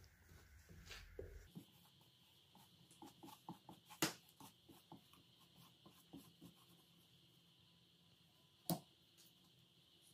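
Faint rubbing of a tack cloth wiped over the aluminium deck face of a Ford 4.6 four-valve cylinder head, with scattered light taps and two sharper clicks, about four seconds and nearly nine seconds in.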